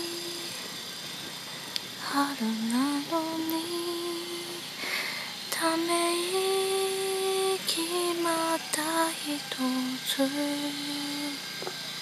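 A woman's voice singing a slow, simple tune softly, holding each note with small slides between notes and short breaks for breath.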